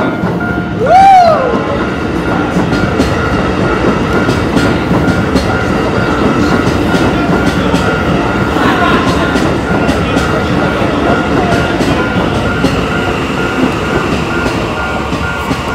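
Shin-Keisei 80000 series electric train passing over a level crossing, its wheels rumbling and clicking over the rail joints, while the crossing's warning bell rings steadily. About a second in, a short horn blast rises and falls in pitch, the loudest sound.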